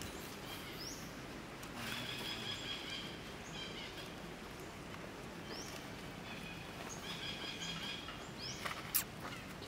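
Outdoor woodland ambience with a few short, high, rising chirps and stretches of high twittering, and a single sharp click near the end.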